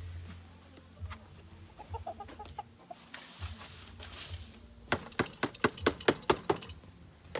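Chickens clucking, with a quick run of about a dozen short, sharp sounds about five seconds in.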